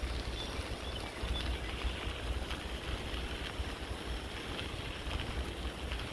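Bicycle tyres rolling over a gravel towpath: a steady rolling noise with scattered small ticks of stones, with wind rumbling on the microphone.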